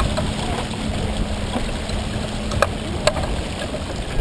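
Water rushing along the hull of a heeled sailboat under sail, with a low rumble of wind on the microphone. Two sharp clicks a little past the middle.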